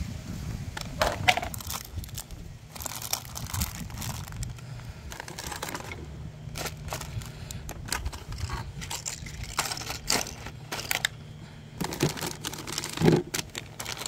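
Plastic bags and bait packaging crinkling as a hand rummages through a plastic tackle organizer, with irregular crackles and a couple of louder knocks, one about a second in and one near the end.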